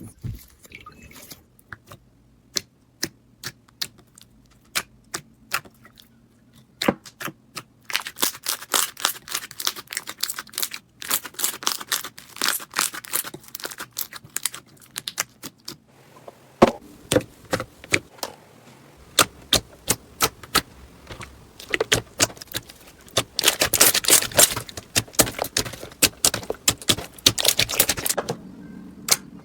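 Slime being squeezed, pressed and pulled by hand, giving sharp clicks, pops and crackles, with two spells of dense rapid crackling.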